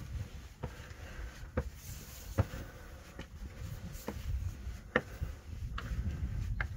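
Footsteps on a path, one step a little less than every second, over a low rumble.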